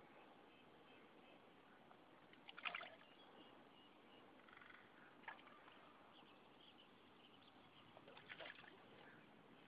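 Quiet lake ambience broken by three brief water splashes beside the pontoon boat, about two and a half, five and eight seconds in, the first the loudest: a hooked fish thrashing at the surface while being played.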